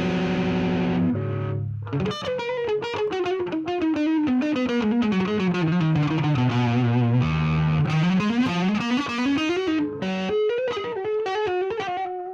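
Electric guitar played through an amp and a chain of effects pedals, with a distorted tone. A held chord rings for about a second, then after a short gap come quick single-note runs that descend and climb back up, with a few more picked notes near the end.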